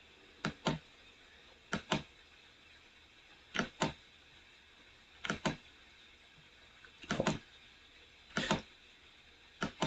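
Computer mouse button clicking: seven short clicks, each a quick double tick, about one every second and a half.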